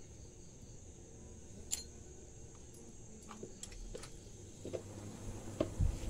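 Small clicks and knocks as the freezer's power is switched on, then near the end a low thump as the refrigeration compressor kicks on and the noise level rises.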